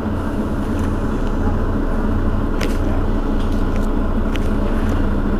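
Mercedes-Benz Citaro Facelift city bus engine idling steadily while the bus is stationary, with a few faint clicks.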